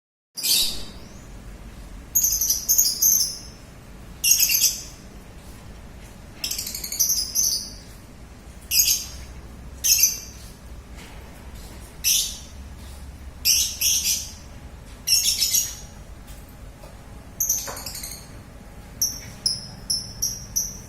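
Lovebird calling in repeated high-pitched chirping bursts, one every second or two, breaking into a quicker run of short chirps near the end.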